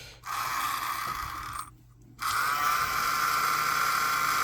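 The small motor and fan of a battery-powered mini vacuum cleaner, run on two AA batteries, start with a high whine. About a second and a half later it cuts out for half a second, then starts again and runs steadily.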